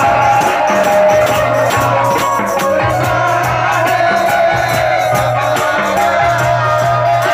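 Devotional jas song sung into a microphone and played through a loudspeaker, with a fast, steady jingling hand-percussion rhythm under the melody.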